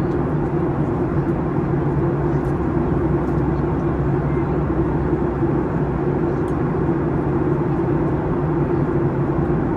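Airliner cabin noise in flight: a steady rush of engine and airflow noise under a constant low hum.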